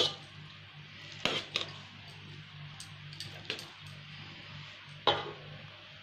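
Metal spoon scraping and clinking against a steel pot while cooked rice is stirred and scooped, with a few separate knocks, the sharpest about five seconds in.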